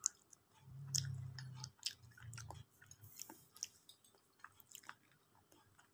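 Faint chewing and small mouth clicks as someone eats grilled chicken, with a low hum for a couple of seconds about a second in.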